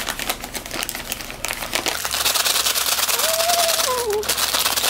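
Paper burger wrapper crinkling and rustling as hands unfold it, a dense crackle that gets louder and busier about two seconds in.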